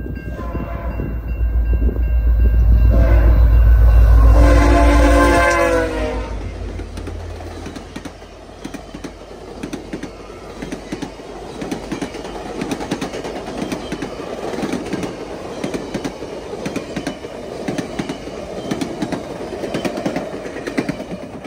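A passing train at a level crossing. Its several-note horn sounds for the crossing over the heavy rumble of the locomotive, loudest a few seconds in. After the locomotive passes, the cars roll by with a steady rhythmic clickety-clack over the rail joints.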